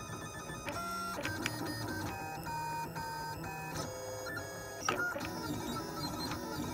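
Stepper motors of a homemade food 3D printer whining in steady tones that jump from pitch to pitch as the print head moves while extruding ketchup. A sharp click about five seconds in.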